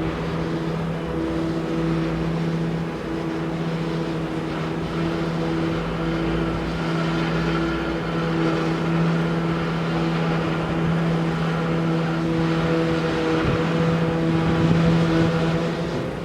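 An engine running at a steady speed, a low drone with a higher tone that pulses on and off; it stops shortly before the end.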